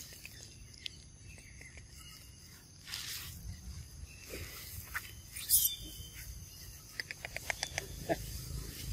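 Dry fallen leaves rustling and crackling, with a sharp crackle about midway and a quick run of small clicks near the end.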